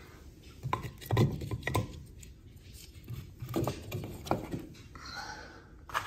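Split firewood logs being set into a wood stove's firebox, knocking and clunking against each other and the stove in two short clusters, about a second in and again about four seconds in.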